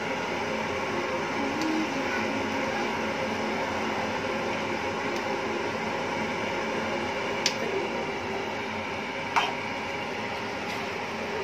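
Steady hum and hiss of kitchen background noise, with two sharp clinks of a metal utensil against the aluminium wok, one about seven seconds in and another about two seconds later.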